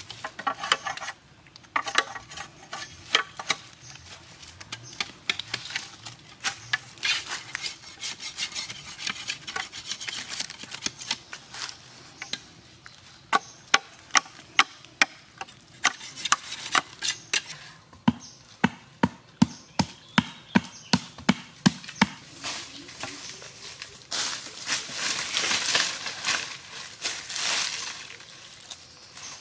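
Machete chopping and shaving a green bamboo tube: a run of sharp knocks, in one stretch about three a second, with scraping in between. Near the end comes a longer stretch of scraping and rustling.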